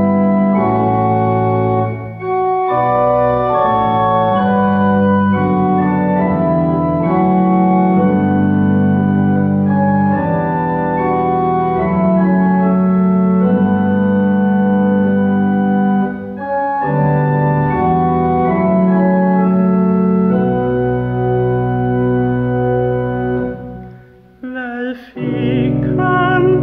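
Church pipe organ playing slow held chords phrase by phrase, with short breaks twice, then stopping about three-quarters of the way through. Near the end the organ comes in again and a woman's voice starts singing with it.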